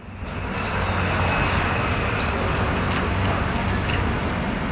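Steady city street traffic noise: a continuous hum of passing road vehicles, with a few faint clicks above it.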